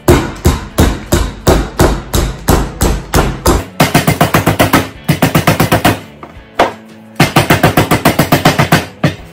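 Marble rolling pin pounding a folded block of bagel dough flat on a granite counter: a run of heavy thuds about three a second, then quicker rounds of about five a second with a brief pause between them.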